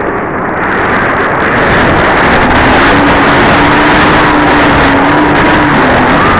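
Electric motor and propeller of a Multiplex Easy Star II RC plane in flight, heard from its onboard camera: an E-Flite Park 450 brushless motor turning an APC 7x5e prop, giving a steady whine under loud wind rush on the microphone, its pitch sagging slightly near the end.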